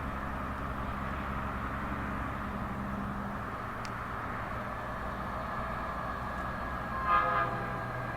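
Steady road-vehicle rumble and tyre hiss, with a short vehicle horn toot about seven seconds in.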